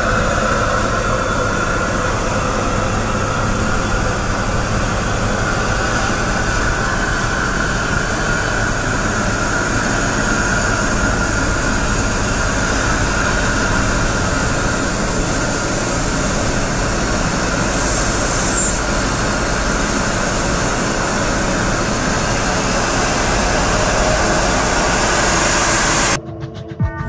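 Nilgiri Mountain Railway steam locomotive moving slowly past at close range: a loud, steady hiss of steam over the low running noise of the locomotive and train. It cuts off abruptly near the end.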